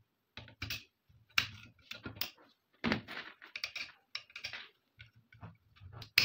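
Metal parts of an AK-47 clicking and tapping as small parts are fitted into the receiver by hand and with pliers: irregular sharp clicks with light rustling, the sharpest click right at the end.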